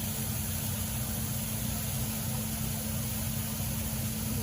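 Waterfall: a steady rush of falling water, with a steady low hum underneath.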